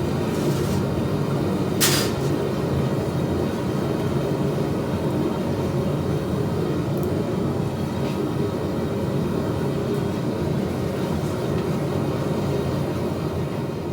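A steady mechanical rumble running at an even level, with one sharp click about two seconds in.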